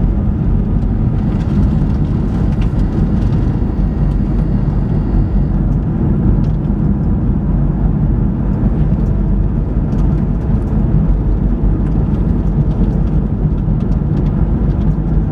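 Steady road and tyre noise with a low drive hum, heard from inside the cabin of a small hybrid car moving along a road.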